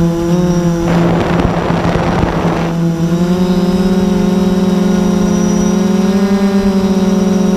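Multirotor drone's motors and propellers humming steadily with a fast pulsing beat, the pitch rising a little about three seconds in as the motors speed up. A burst of wind noise rushes over the hum about a second in and lasts nearly two seconds.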